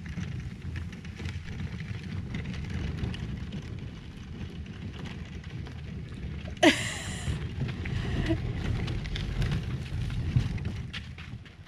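Kayak trolley wheels rolling over sandy gravel: a low, crackly rumble that eases off as the cart moves away and grows again as it comes back. There is one brief, falling squeal about seven seconds in.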